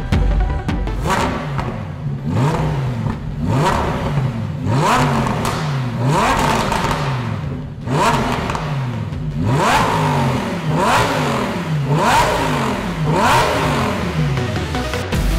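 Lamborghini Huracán Performante's 5.2-litre V10 revved repeatedly in neutral through a Fi Exhaust valved catback and catless downpipes: about ten sharp blips, each rising quickly in pitch and falling back, roughly one a second, with a short break near the middle.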